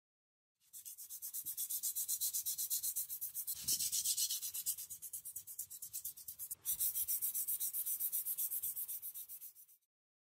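Hand sanding a wooden knife handle with sandpaper: quick, even back-and-forth strokes with a dry, hissing scrape. There is a short break about two thirds of the way through, then the strokes stop suddenly near the end.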